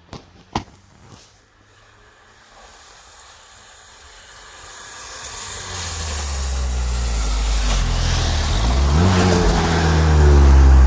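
Car engine approaching and growing steadily louder, then revving up and back down about nine seconds in as the car pushes through snow, with a hiss of tyres and snow over the engine.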